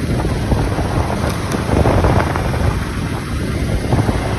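Wind buffeting the microphone of a camera mounted on a moving motorbike, a loud steady rumble mixed with the bike's engine and road noise.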